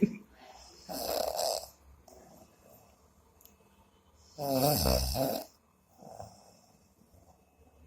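A person asleep and snoring. There is a softer snore about a second in, then a louder, low-pitched snore around four and a half seconds in, with a faint breath after it.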